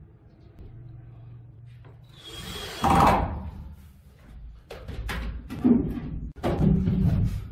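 Wooden bed-frame parts and drawer boxes being handled, giving a run of sharp knocks and clatter with some rubbing in the second half. Earlier, a cordless drill runs briefly.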